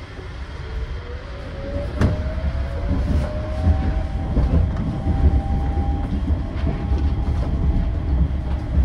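Yurikamome rubber-tyred automated train heard from inside the car as it gathers speed. The electric traction motor's whine rises in pitch over the first few seconds, then holds steadier, over a low running rumble that grows louder. There is a single sharp knock about two seconds in.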